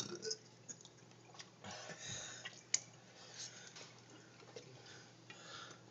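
A person drinking from a plastic bottle: a few short breaths and small handling clicks, with one sharp click near the middle, over a low steady hum.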